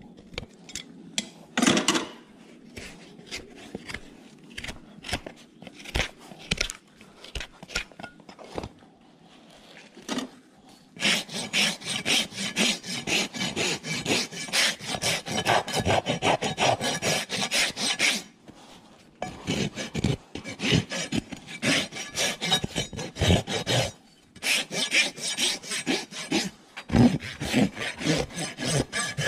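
Farrier trimming a horse's hoof: a few sharp cuts of hoof nippers on the hoof wall, then from about a third of the way in a hoof rasp filing the horn in long runs of quick strokes, with two short pauses.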